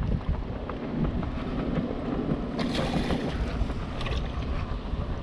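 Wind buffeting the microphone over water lapping against the side of a small fishing boat, with a brief louder rush of noise about two and a half seconds in.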